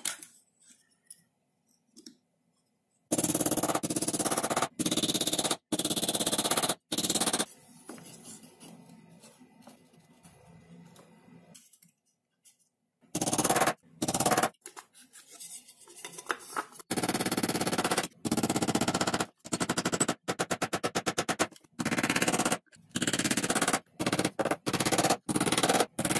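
Small hammer tapping tiny nails into a thin-walled wooden box, with a run of quick, even taps, heard through background music that starts and stops abruptly with the edits.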